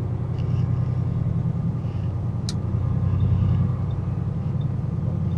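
Semi truck's diesel engine running as a steady low drone inside the cab, swelling slightly a little past halfway and then easing. A single sharp click sounds about two and a half seconds in.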